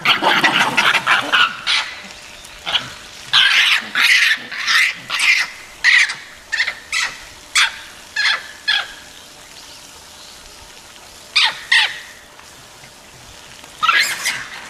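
Japanese macaques giving many short, high calls in quick runs while one monkey is attacked and chased, with a few seconds' pause before a pair of calls and then another run near the end.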